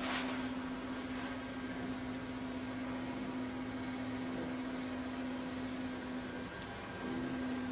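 Steady low electrical hum over a constant hiss, dropping out briefly about a second before the end, with a short rustle at the very start.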